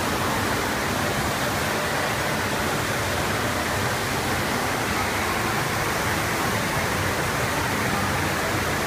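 Steady rush of water pumped in a thin sheet up the slope of a surf-simulator wave ride.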